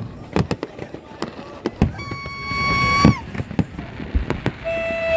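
Fireworks exploding in a string of sharp bangs. Two long held tones, like horns, sound over them: one about two seconds in and a lower one near the end, each dropping in pitch as it stops.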